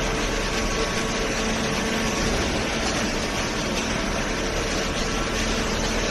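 Industrial machinery running steadily: an even mechanical noise with a constant low hum.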